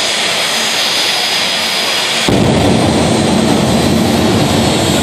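Jet dragster's turbine engine running loud and steady at the start line, a hissing blast of exhaust. About two seconds in its afterburner lights and a sudden deep rumble joins it and carries on.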